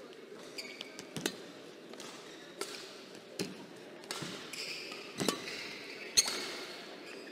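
Badminton rally: rackets striking the shuttlecock in six sharp hits about a second apart, with shoes squeaking briefly on the court floor between strokes.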